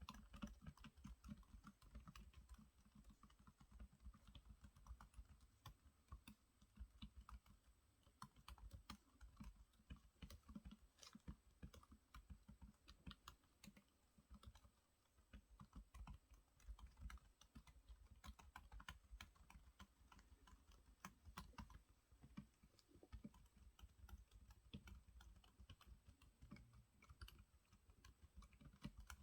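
Continuous typing on a Logitech K380s low-profile Bluetooth keyboard with a keyboard skin fitted over the keys: a quick, irregular stream of soft, quiet key clicks with dull thuds, the skin damping the keystrokes.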